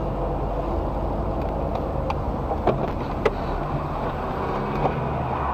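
Car engine and road noise heard from inside a car: a steady low hum with a few light ticks.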